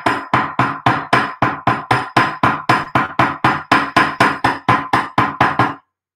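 Rapid, steady hammer blows, about four a second, from the small edge of a Now That's A Hammer texturing hammer striking 14-gauge copper craft wire on a small steel horn anvil. Each blow gives a sharp metallic ring, and they stop just before the end. The hammering marks, textures and work-hardens the wire link.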